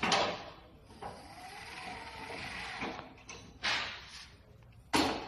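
Semi-electric pallet truck's 48-volt brushless drive motor running as the truck is driven and turned, with three sharp knocks: one at the start, one near four seconds in and one near the end.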